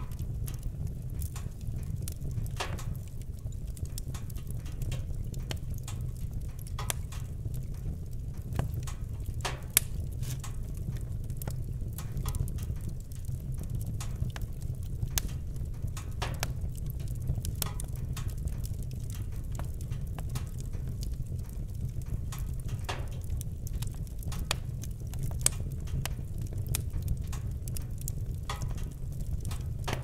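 Wood fire burning: a steady low rumble of flame under irregular sharp crackles and pops from the logs, with a few louder pops scattered through.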